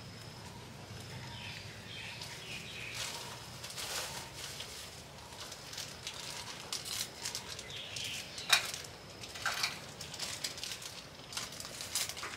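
Irregular rustling and crackling clicks, growing denser after the first few seconds, with one sharper snap about eight and a half seconds in.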